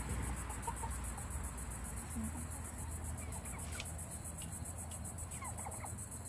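Crickets chirping steadily at a high pitch, with a few soft clucks from backyard chickens in the second half, over a low steady hum.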